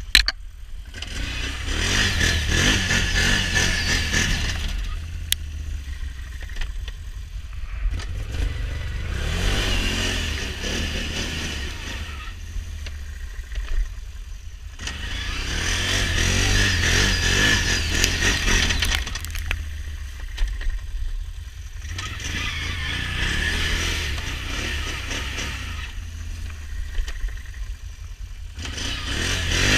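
Can-Am Renegade XMR 1000's V-twin engine revved hard in about five long surges, dropping back to idle between them, while the tyres spin in mud and snow with the ATV dug into a rut.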